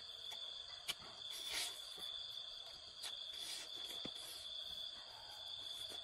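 Steady high-pitched chirring of night insects, with a sharp crunch about a second in, a short rustling burst just after, and another crunch about four seconds in as a man bites and tears into roasted rat meat.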